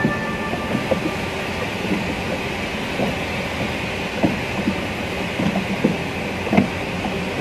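Steady rushing of wind and choppy sea water around a small boat, with scattered light knocks and clicks.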